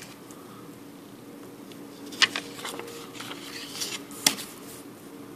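Banknotes being handled on a table: two sharp crackles of the note about two and four seconds in, with light rustling of the notes between, over a steady low hum.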